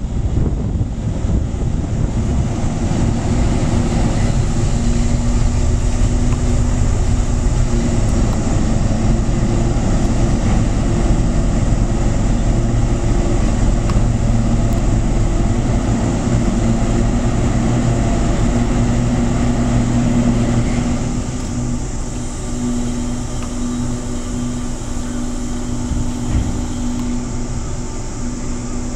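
The car ferry Kakeroma's diesel engines running steadily while it holds at the pier: a low drone with a steady hum over it, easing off a little about two-thirds of the way through.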